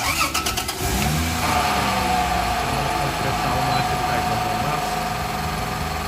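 Toyota Land Cruiser 80's engine cranked by its starter for about a second, then catching and settling into a steady idle with a steady whine above it, started to run the newly recharged air conditioning for a leak check.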